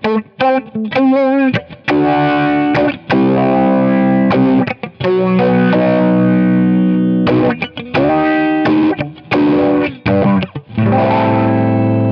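Electric guitar played through an Ibanez AFL Auto Filter envelope filter into a Peavey amp. Short, choppy notes with a wah-like sweep about a second in give way to held chords, and the last chord rings on.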